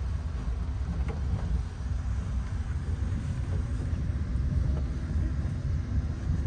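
Road and tyre noise with some wind, heard inside the cabin of a Rivian electric vehicle driving at speed: a steady low rumble.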